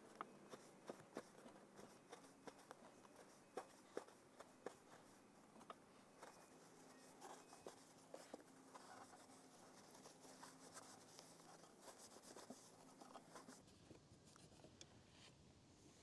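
Faint rustling and rubbing of a paper towel wiping an RV air conditioner's fan motor shaft and fan blades, with scattered small clicks and taps, most of them in the first half.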